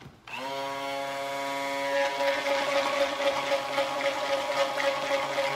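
Handheld stick blender switching on about a third of a second in, spinning up quickly and then running with a steady motor whine. It is blending mica colorant into cold-process soap batter in a plastic pitcher.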